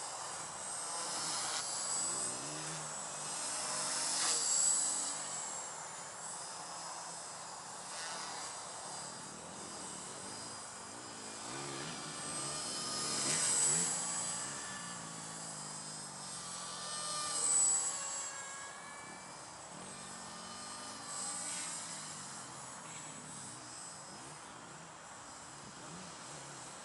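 Walkera V120D02S micro electric RC helicopter flying aerobatics: a high brushless-motor whine and rotor buzz that bend up and down in pitch and rise and fall in loudness as it manoeuvres, swelling loudest about four, thirteen and seventeen seconds in.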